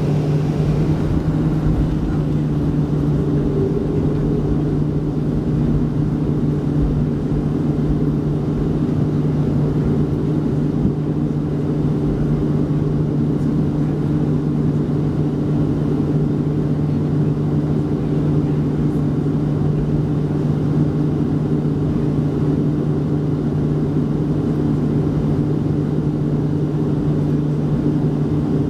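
Boeing 737-300's CFM56-3 turbofan engines at taxi power, heard inside the cabin: a steady hum of a few held tones over a low rumble.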